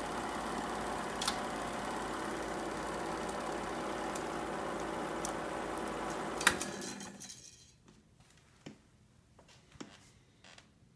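Bell & Howell 245 Regular-8 movie projector running with a steady mechanical whirr. About six and a half seconds in, its control knob is turned off with a sharp click and the mechanism winds down within about a second, leaving only a few faint clicks.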